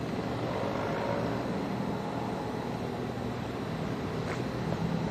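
Steady rumble of road traffic, with an engine hum that grows stronger near the end.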